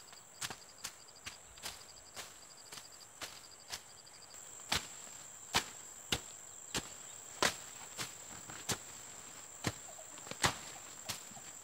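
Machete slashing through weeds and brush while clearing undergrowth: irregular sharp chopping strokes, about one and a half a second, louder from about four seconds in. Insects drone steadily and high in the background, with a pulsing chirp in the first few seconds.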